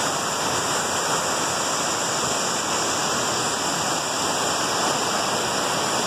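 Water rushing steadily down a broad natural rock-slide waterfall, white water pouring over smooth rock slabs in shallow rapids.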